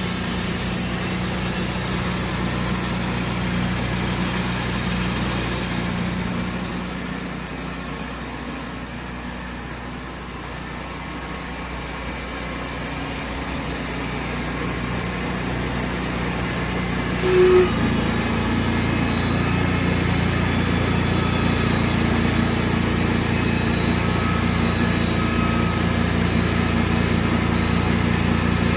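Sawmill engine running steadily, dropping back for a few seconds, then stepping up to a louder, heavier note about two-thirds of the way through, just after a brief loud tone.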